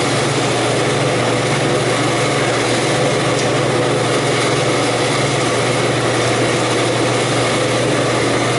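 Walk-in cooler evaporator fans running at close range: a steady, even hum and rush of moving air while the refrigeration system runs.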